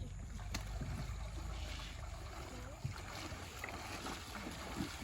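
Small boat moving across floodwater, with water moving around the hull. A low rumble of wind on the microphone runs under it.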